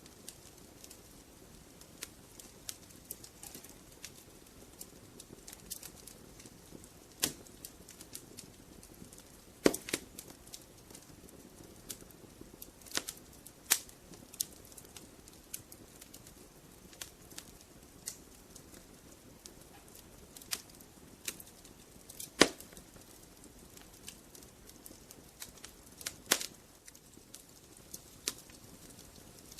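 Wood fire crackling in a fireplace: burning logs giving scattered sharp pops and snaps at irregular intervals over a faint low hiss, the loudest pops about ten seconds in and again about twenty-two seconds in.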